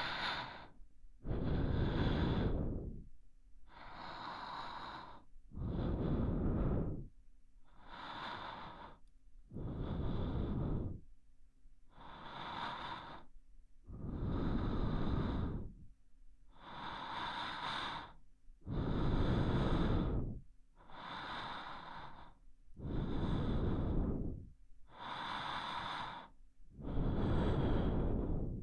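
A person breathing slowly and deeply close to the microphone, ASMR-style. There are about seven unhurried breaths, each a louder phase followed by a softer one, about one breath every four seconds.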